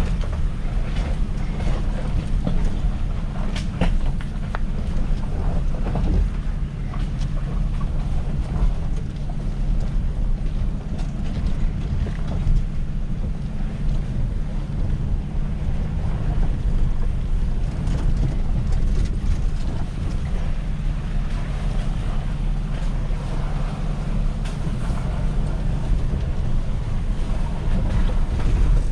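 Truck engine running steadily, with scattered knocks and rattles.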